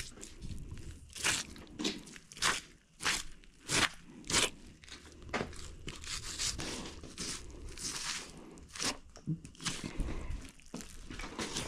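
A knife skinning a wild hog: a run of short, sharp cutting strokes, about one to two a second, as the blade slices through coarse hog hair and thick hide while the skin is pulled back from the carcass.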